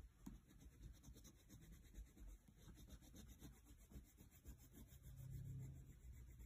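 Faint, irregular scratching of a wax crayon rubbed back and forth across sketchbook paper, with a brief low hum about five seconds in.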